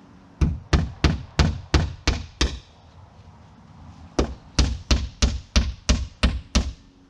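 Hammer driving nails into wooden trim on the house wall: two runs of sharp blows, about three a second, with a pause of under two seconds between.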